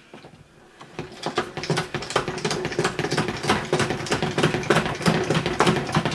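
Pump-action plastic salad spinner being pumped, its basket spinning up with rapid clicking and a steady whirring hum that grow louder after about a second, as it spins water out of a wet knitted wool blank.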